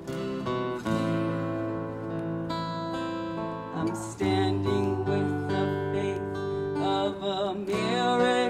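Live acoustic worship music: a strummed acoustic guitar over low bass notes, with a wavering melody line coming in near the end.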